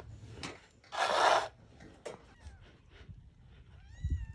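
A kitten gives a short, high, arching mew near the end. The loudest sound comes about a second in: a half-second rasping noise.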